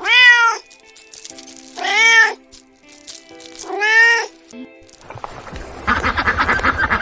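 A domestic cat meowing three times, about two seconds apart, each meow rising and then falling in pitch, over background music. From about five seconds in, a dense, fast-pulsing sound takes over.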